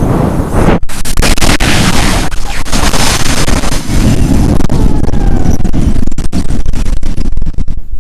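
Strong wind with rain buffeting the microphone: a loud, rough rush with a deep rumble and many crackling pops.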